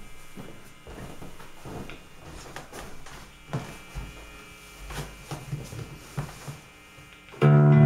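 Handling noise and scattered knocks and taps as an acoustic guitar is picked up and the player settles onto a stool. About seven seconds in, a loud chord is strummed on the acoustic guitar and rings on.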